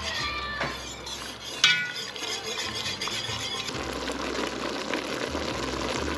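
Flour-thickened sauce bubbling at a boil in an enameled cast-iron Dutch oven on high heat, after stirring. A single sharp metal clink on the pot comes about one and a half seconds in.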